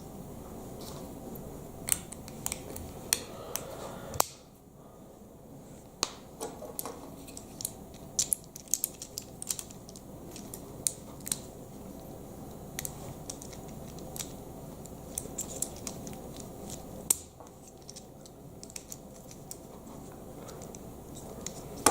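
Plastic Lego Technic parts clicking and tapping as they are handled and pressed together, in scattered sharp clicks over a steady low background hum.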